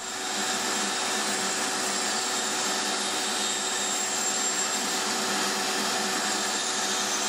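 Bandsaw and its attached dust extraction running with a steady, even whir while a pine board is cut.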